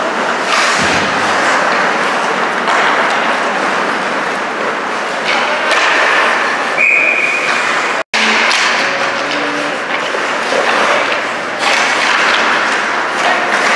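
Ice hockey play heard from the rink side: a steady wash of skates scraping the ice, with scattered knocks and thuds of sticks, puck and boards. The sound drops out for an instant a little past halfway.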